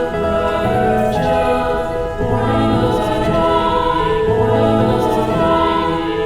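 Slow music with sustained, layered choir voices, the chords changing about every second.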